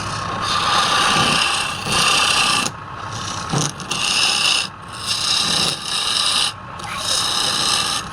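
A wood lathe running with a steady whine while a turning tool cuts the spinning wood in about six scraping passes, each a second or less, with short gaps between.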